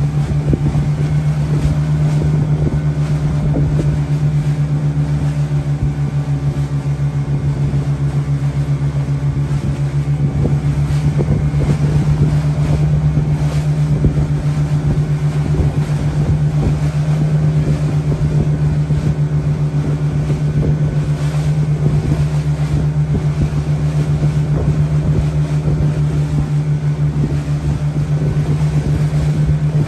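Small fishing boat's engine running steadily under way, a constant low drone, with wind and rushing water noise.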